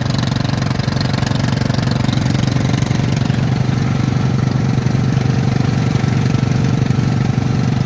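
Riding lawn mower engine running at a steady speed.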